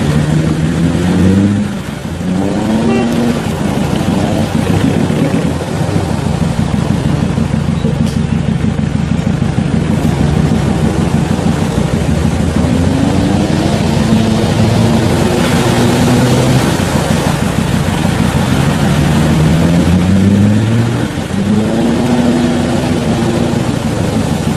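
Off-road 4x4's engine revving up and falling back several times, with the strongest pulls about a second in, around twelve to fifteen seconds in, and around twenty seconds in, over a steady noisy rush.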